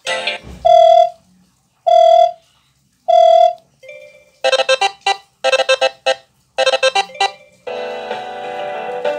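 Phone ringtones and alert tones playing one after another: three identical short beeps about a second apart, then three quick runs of rapid ringing notes, then a new melodic ringtone starting near the end.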